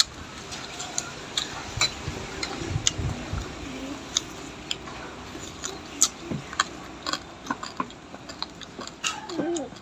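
Family eating at a table: chewing on bony fried frog and field rat, with irregular sharp clicks of chopsticks and spoons against stainless steel bowls.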